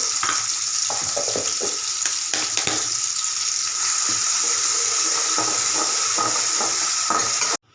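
Onion, tomato and ginger-garlic paste sizzling in hot oil in a kadai, with a spatula ticking and scraping against the pan as it is stirred. The sound cuts off suddenly near the end.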